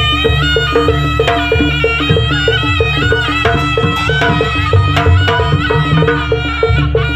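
Javanese jaranan accompaniment music: a sustained melody line over a quick even pulse of about four beats a second from percussion and low drums.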